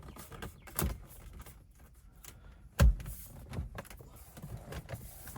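Plastic dashboard trim being handled and pressed into place: scattered taps and light rattles, with a loud sharp knock about three seconds in and a smaller one about a second in.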